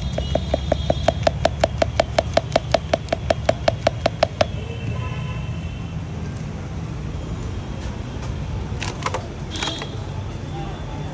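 Metal spoon clinking rapidly and evenly against a steel glass, about five or six strikes a second for the first four and a half seconds, as when sattu flour is stirred into water; a couple of looser clinks follow later. A steady low rumble of street traffic runs underneath.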